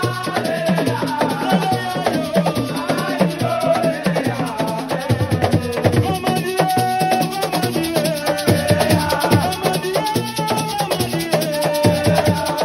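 Assiko music: drums and rattling shakers keep a dense rhythm under a wavering sung melody.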